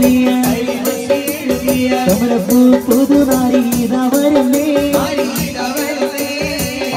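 Live band music: congas played by hand in a steady rhythm of sharp strokes under a held, slightly wavering melody line.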